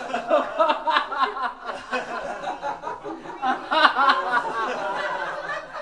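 A group of people laughing together, many voices overlapping. This is the deliberate, unprompted laughter of a laughter yoga session.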